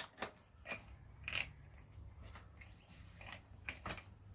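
Motorcycle drive chain links clinking as the chain is fed around the sprocket: a string of light, irregular metallic clicks.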